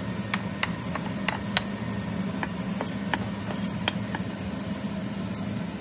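Garlic sautéing in hot olive oil and bacon fat in a pan: irregular sharp pops and crackles over a faint hiss, with a steady low hum underneath.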